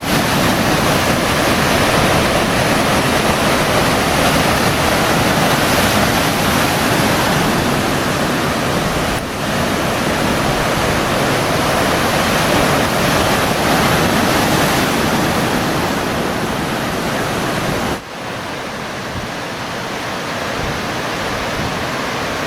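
Steady, loud rushing noise with no tones or rhythm. It drops suddenly to a quieter rushing about 18 seconds in.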